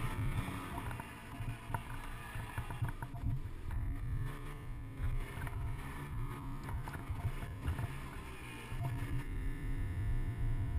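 Ski-Doo snowmobile engine running under throttle while the sled plows through deep powder, heard as a continuous, uneven low rumble.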